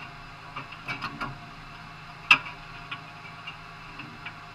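Irregular sharp clicks and knocks, one much louder knock a little past two seconds in, over a steady low hum.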